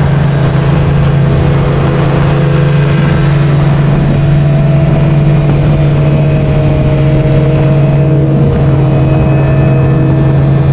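Engine running steadily and loudly, a constant low drone with little change in pitch.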